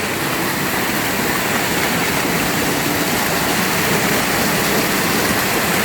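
Rushing water of a river and its cascades: a steady, even roar of noise with no break.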